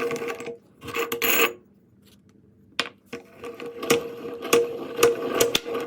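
Electric meat grinder running with a steady motor hum while crunching chocolate candy, with many sharp cracks and clicks. The motor stops for about a second and a half near the middle, then starts again.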